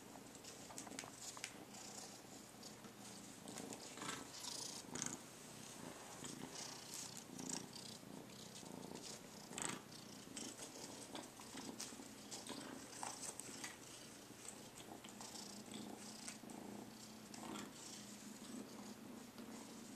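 A kitten purring steadily while it plays on carpet, with soft irregular scuffs and rustles from its paws and a small cloth toy.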